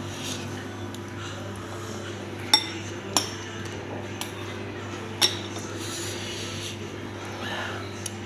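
Spoon or fork clinking against a plate or bowl a few times, three sharp clinks standing out, over a steady low hum.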